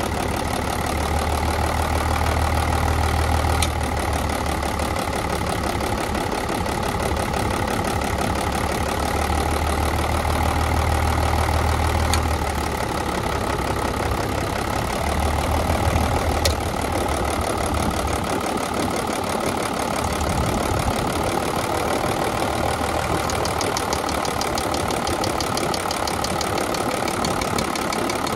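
1987 Mitsubishi Fuso truck's diesel engine idling while its injector lines are cracked loose one at a time, a cylinder-drop test. The deep engine note changes in several spells of a few seconds each. Each cracked injector drops the revs about the same, a sign that every cylinder is firing evenly.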